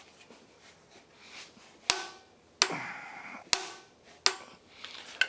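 A click-type torque wrench on a spanner-wrench extension, clicking four times with a short metallic ring as it reaches its set torque while the MerCruiser Bravo 2X input shaft is tightened to its 200 ft-lb specification. The clicks start about two seconds in and come a little under a second apart.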